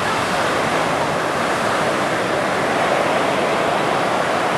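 Ocean surf rolling in and washing up the beach: a steady, even rushing.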